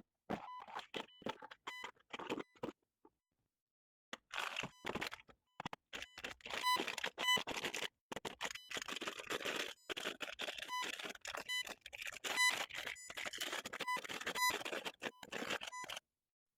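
Unboxing handling noises: short scrapes, squeaks and clicks of packaging and plastic parts, in bursts cut apart by abrupt silent gaps.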